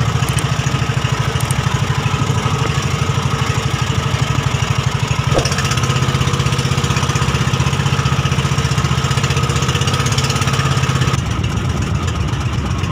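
Engine of a motorized outrigger fishing boat running steadily while the boat is under way, with a fast, even putter.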